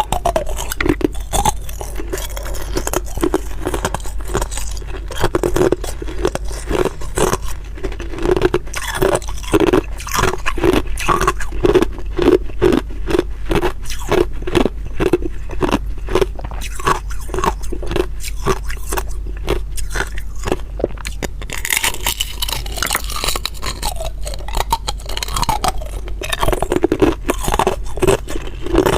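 Hard ice being bitten and chewed close to the microphone: a steady run of loud, crisp crunches, several a second, without a break.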